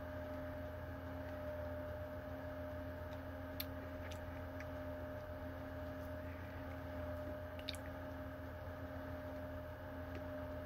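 Steady room hum with a faint constant tone, broken by a few faint, short clicks around the middle.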